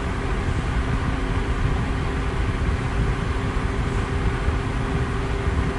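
Electric fan running steadily: an even rush of air with a low hum and two faint steady tones.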